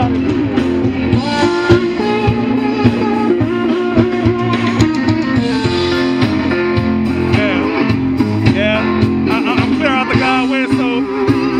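A blues band playing live: an electric guitar takes the lead over a steady bass line, with bent notes near the end.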